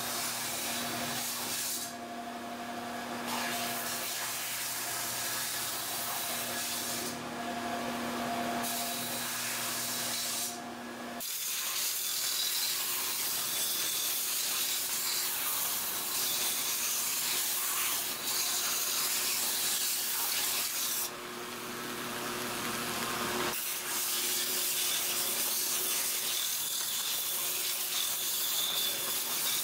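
Belt sander running with a steel bascinet skull pressed against the moving abrasive belt, a steady grinding hiss over the motor's hum. The hiss drops out briefly a few times in the first ten seconds or so.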